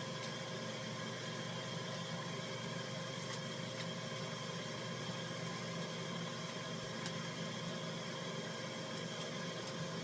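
Steady machine hum, with several fixed pitches, and a few faint light ticks on top.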